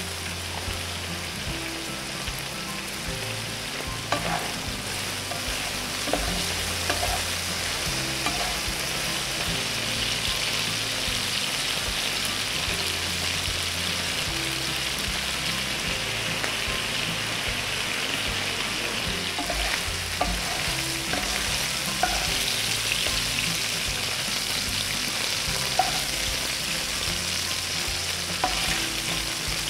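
Thin strips of beef sizzling in hot oil in a frying pan, with a steady hiss that grows fuller from about eight seconds in. A few light knocks are heard here and there.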